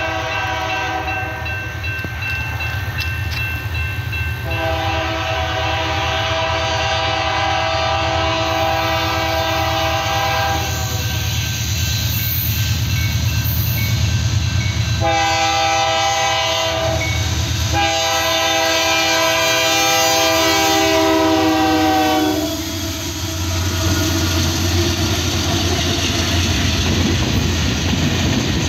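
Freight train rolling past with a steady rumble of cars on the rails. A locomotive air horn sounds several blasts over it: a long one, a short one, then another long one that stops about 22 seconds in, the warning for a grade crossing.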